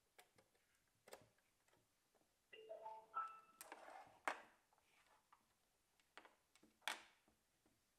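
Aovo K1 Bluetooth speaker's power-on chime: a short run of four notes stepping upward in pitch, a few seconds after a plug clicks into its back port. Handling knocks and rubbing follow as the speaker is moved on the table, the loudest just after the chime and again near the end.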